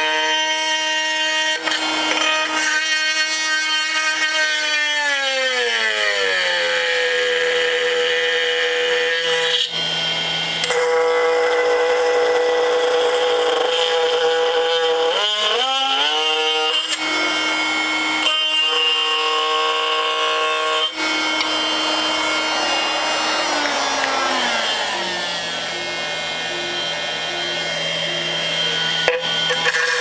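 Makita XMT04 18V brushless cordless oscillating multi-tool running and cutting into a board, a loud steady buzz. Its pitch glides down a few seconds in, climbs back up in the middle, and glides down again later.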